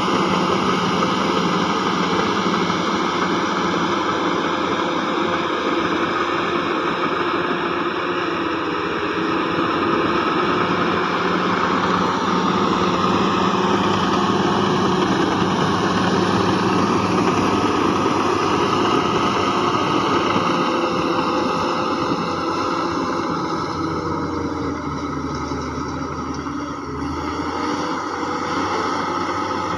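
Heavy earthmoving machinery's diesel engine running steadily under work, its pitch slowly rising and falling, with a short drop in level near the end.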